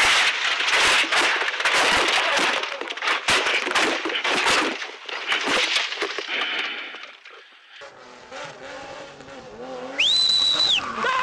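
Rally car crash heard from inside the cabin: a dense run of heavy bangs, scraping and crunching as the car goes off and the windscreen shatters, dying away after about five seconds. Near the end a sharp cut brings in a loud high whine that rises and falls.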